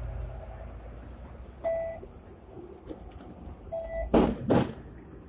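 Octopus card reader at a tram's front exit beeping as passengers tap out, two short beeps about two seconds apart over a steady low hum. Near the end there are two louder short sounds.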